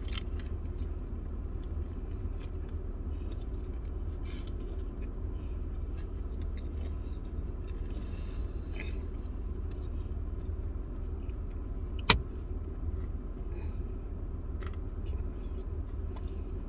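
Chewing and small mouth and wrapper clicks from eating a chicken sandwich, over the steady low hum of a car cabin, with one sharp click about twelve seconds in.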